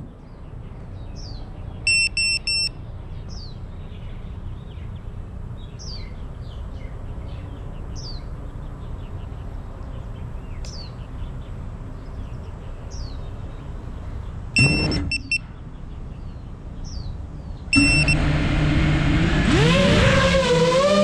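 Birds chirping while an FPV drone's beeper gives a short run of beeps, then more beeps later. Near the end the drone's motors spin up with a loud whine that wavers up and down in pitch as the throttle changes.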